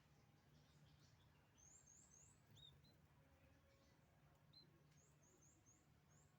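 Faint, high, thin chirps of firefinches: quick runs of three or four short upward-sliding notes, about two seconds in and again near the end, with a couple of lower single notes between them.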